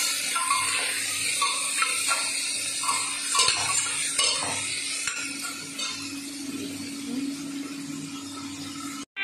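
Chopped vegetables sizzling in oil in an open stainless-steel pressure cooker while a metal spoon stirs and scrapes them against the pot, with scattered clinks. The sizzle slowly gets quieter and cuts off suddenly near the end.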